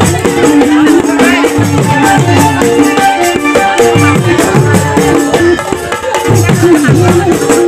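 Live folk band playing: a rope-laced hand drum beating a steady rhythm under a plucked stringed instrument and a keyboard, with a voice over the music.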